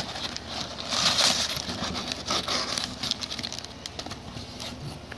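Crumpled newspaper packing rustling and crinkling, with small clicks from stacked plastic deli cups being lifted out of a foam-lined shipping box. It is loudest in the first couple of seconds, then fainter handling noise.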